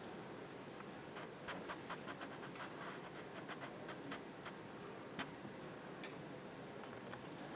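A hushed meeting room held in a moment of silence: faint steady room hiss with scattered small clicks and ticks, most of them between about one and five seconds in.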